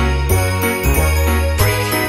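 Background Christmas music with jingle bells over a bass line that changes note every fraction of a second.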